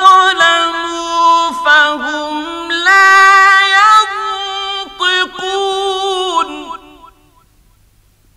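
Mujawwad Quran recitation: a single high-pitched male voice draws out long, ornamented melodic phrases to finish a verse, then breaks off about seven seconds in.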